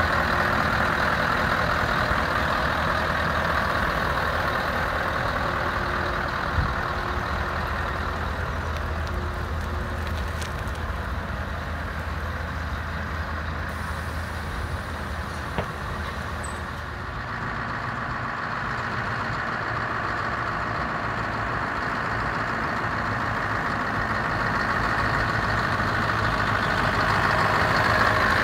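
Scania R164's 16-litre V8 diesel idling steadily, getting louder near the end.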